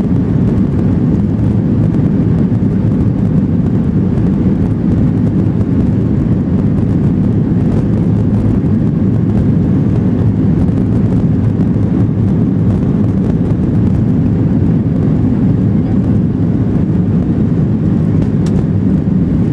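Boeing 737 jet engines at takeoff thrust, heard from inside the passenger cabin as a loud, steady, deep rumble through the takeoff run and lift-off.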